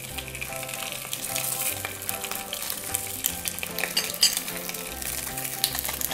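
Sea bass fillets searing in hot olive oil in a stainless steel frying pan: a steady sizzle with scattered crackles and pops, loudest about four seconds in.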